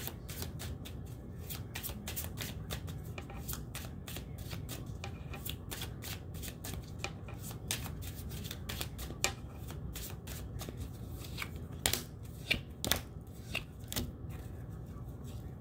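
A deck of tarot cards shuffled by hand: a continuous run of soft, rapid card flicks, with a few louder clicks around twelve to fourteen seconds in, before the shuffling stops near the end.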